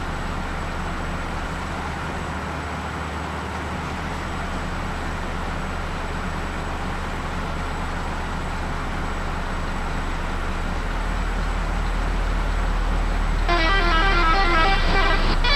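Steady vehicle rumble that grows slowly louder. About thirteen and a half seconds in, the SCH Euroliner bus's telolet horn, a multi-tone musical horn, starts playing a quick tune of changing notes.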